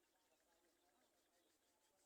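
Near silence, with only faint, indistinct background sound.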